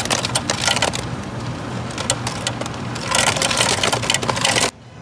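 Fountain-drink ice dispenser running, ice cubes clattering down the chute into a foam cup; it cuts off suddenly near the end.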